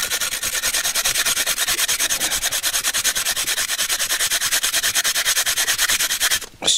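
A carrot being grated on a clear plastic grater resting on a stainless-steel bowl: fast, even rasping strokes that stop shortly before the end.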